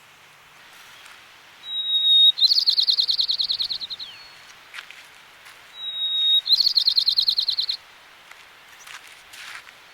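White-crowned sparrow singing twice, each song a clear whistle running straight into a fast trill.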